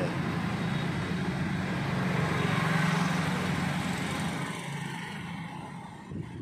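A motor vehicle's engine running as it passes: a steady low rumble that grows louder to about three seconds in, then fades away.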